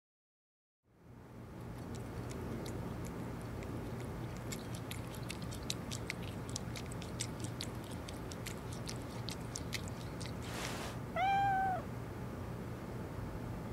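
A cat eating from a bowl: a run of quick, sharp wet clicks over a steady low hum. Near the end, after a brief hiss, comes one short meow that rises and falls in pitch, the loudest sound.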